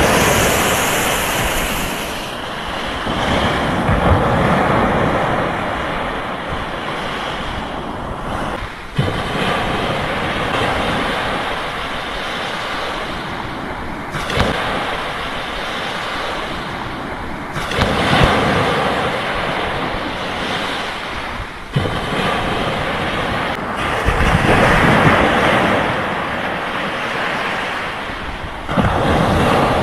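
Mediterranean Sea waves surging and washing ashore, swelling and ebbing every few seconds, with wind on the microphone. The sound breaks off and resumes abruptly several times.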